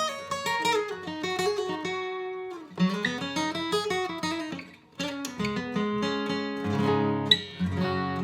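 Larrivee L-02 acoustic guitar played fingerstyle: separate picked notes and arpeggios that step up and down in pitch, with two short breaks, the second about halfway through, then fuller ringing chords.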